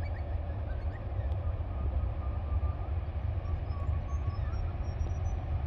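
Low, steady rumble of a distant approaching TasRail diesel-electric locomotive, with birds singing faintly over it.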